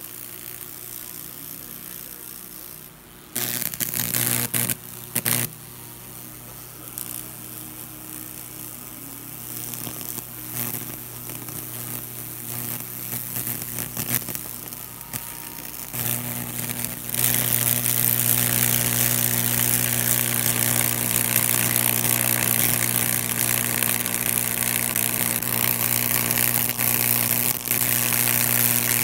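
A high-voltage Lichtenberg wood-burning rig: a steady electrical hum with a sizzling crackle as current burns through the wood. A few loud short bursts come a few seconds in. Past the middle the hum and crackle turn loud and continuous as the burn flames up.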